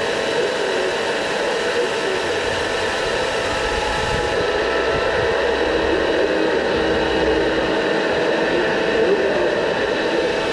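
Steady whirring hiss of a small electric fan, with faint steady motor whine tones running through it.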